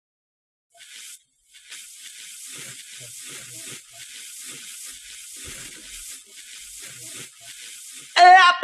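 A thin, steady hiss like static, high in pitch with nothing below it, starting about a second in after a short blip. Just before the end, loud dance music with a synth melody kicks in abruptly.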